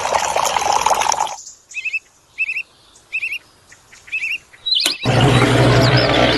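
Small songbird chirping: about five short two-note chirps, a little under a second apart, over near-quiet after running water cuts off about a second in. About five seconds in there is a click, and then a loud steady noise with a low hum starts abruptly.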